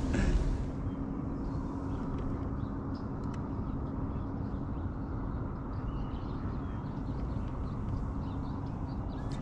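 Steady low rumble with a faint constant hum, and scattered faint bird chirps above it.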